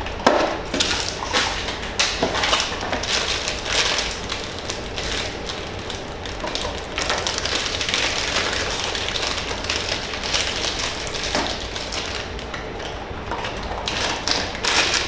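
Blind-box packaging being torn open and handled: continuous crinkling and rustling with many small taps and clicks.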